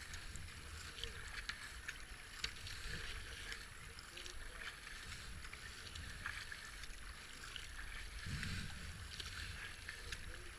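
A racing kayak being paddled: the double-bladed paddle dips and splashes in repeated strokes, with water dripping and lapping along the hull. A low wind rumble on the microphone runs underneath.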